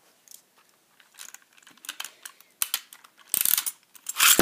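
Scattered light plastic clicks from Beyblades being fitted to their launchers. About three seconds in comes a short ratcheting zip from a ripcord launcher being pulled. Just before the end there is a sharp clack as a Beyblade lands in the plastic stadium and starts scraping around the bowl.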